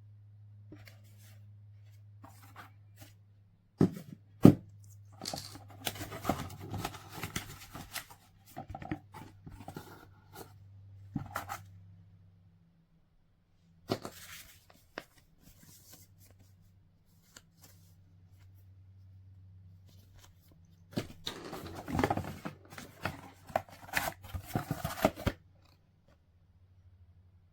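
Close handling noises: rustling and crinkling in two long stretches, with two sharp knocks about four seconds in and small clicks between them, over a faint steady low hum.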